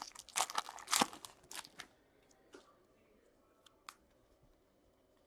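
Foil trading-card pack wrapper being torn open and crinkled by hand, a quick run of crunchy rips in the first two seconds, followed by a couple of faint taps as the cards are handled.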